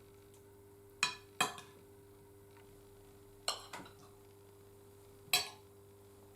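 Metal cutlery clinking against a dish a few times, about five short clinks in pairs, as a portion of meatballs is served for tasting.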